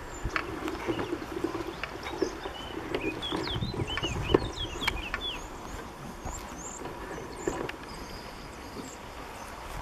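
Small birds chirping in short high calls, busiest in a cluster around the middle, over outdoor rustling, scattered knocks and a low wind rumble; one sharp knock midway is the loudest sound.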